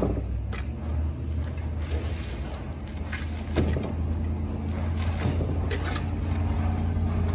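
Heavy bags of concrete mix being set down and shuffled on a wooden trailer deck: a sharp thud at the start and another about three and a half seconds in, over a steady low rumble.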